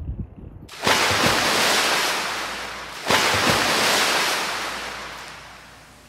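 Loud hissing, rushing noise like surf, in two long surges: the first comes on suddenly about a second in, breaks off briefly, and the second fades away slowly.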